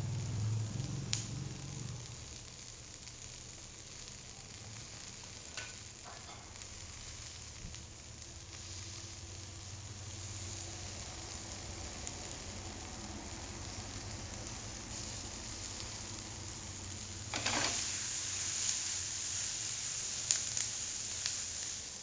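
Chili sambal sizzling and frying in a stainless steel pot, with a steady hiss throughout. A wooden spoon stirs it, with a few sharp taps and a louder stretch of stirring about three-quarters of the way through.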